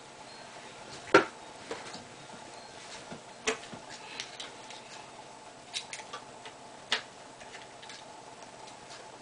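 Small steel packing pieces and a lathe boring bar clicking against each other in the hands: a few sharp, irregular metal clicks, the loudest about a second in.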